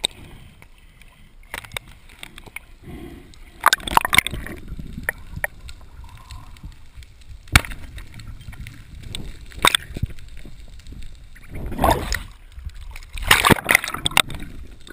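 Water sloshing and gurgling around a camera mounted on a speargun, at and just below the ocean surface, with a few sharp knocks and short splashy bursts.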